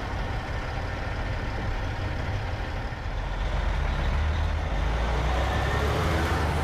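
Heavy diesel tow trucks, a Western Star wrecker in front, running as they roll slowly past. The low engine rumble grows louder about halfway through as the lead truck comes close.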